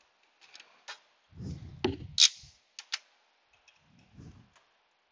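Scattered sharp clicks and light metallic taps, with a couple of duller low knocks, as an AC refrigerant line fitted with new O-rings is worked by hand into its fitting at the condenser.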